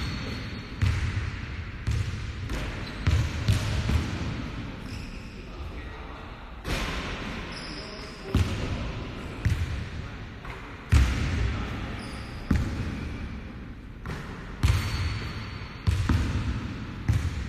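Basketballs bouncing on a hardwood gym floor, irregular thuds that echo in the hall, about one every one to two seconds, with background voices.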